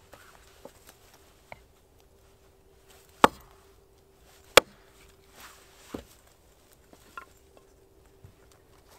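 Hatchet splitting short lengths of firewood on a log: two sharp chops about a second and a half apart near the middle, then a lighter knock, with small clicks of wood pieces between.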